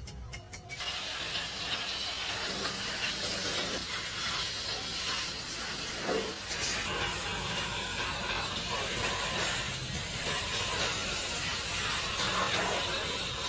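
A steady hiss of a pressurised jet, such as compressed air or a spray, starting under a second in, with a low hum beneath it.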